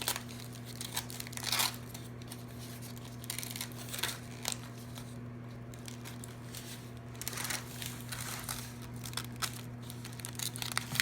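Aluminium foil crinkling in irregular short bursts as it is peeled back from a baked banana, over a steady low hum.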